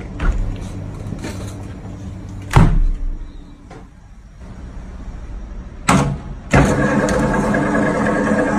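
A loud metallic clunk about two and a half seconds in. About six and a half seconds in, a stainless-steel electric meat grinder switches on with a click and runs with a steady motor hum.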